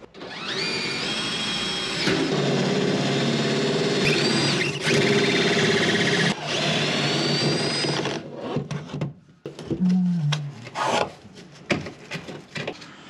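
Compact power drill boring a hole through a fiberglass cabinet wall. Its motor whine rises as it spins up, and it runs for about eight seconds with short dips as it bites. It then stops and is followed by light knocks and handling.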